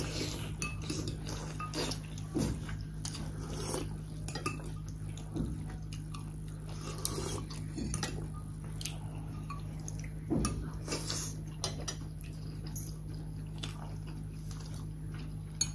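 People eating at a table: chewing, with scattered light clicks of forks and spoons against bowls and plates, over a steady low hum.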